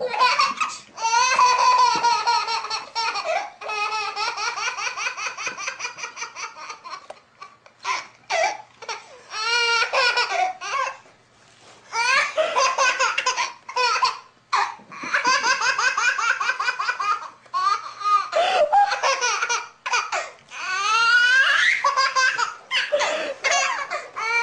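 A baby laughing hard in several long bouts of rapid, high-pitched laughs, with short pauses between the bouts.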